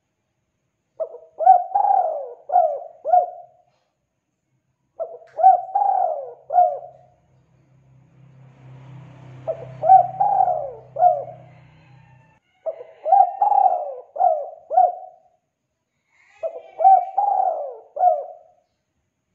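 Spotted dove cooing: five phrases a few seconds apart, each a quick run of four or five notes.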